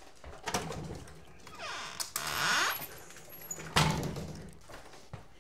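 A door being opened and shut to let a dog in or out: several knocks and clicks, a brief sliding rush just after two seconds in, and a loud knock almost four seconds in.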